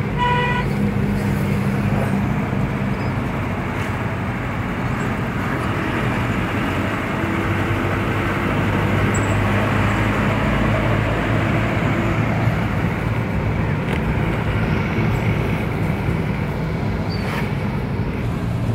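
Steady engine and tyre noise from inside a moving car's cabin. A horn sounds at the start and cuts off about half a second in.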